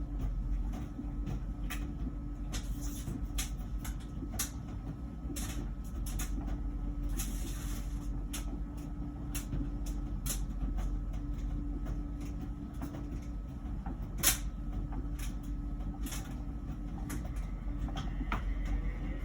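LG Wash Tower heat pump ventless dryer running, a steady low hum with a steady tone and irregular clicks and taps, one louder knock midway. Near the end a new pitched buzz starts, a noise that the year-old dryer did not make before and whose cause the owner does not know.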